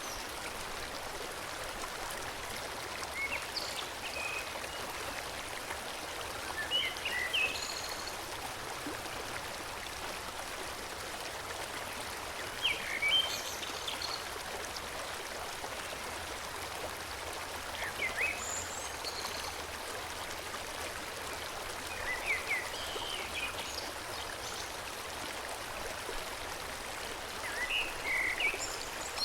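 Forest stream flowing steadily, with short clusters of bird chirps every few seconds.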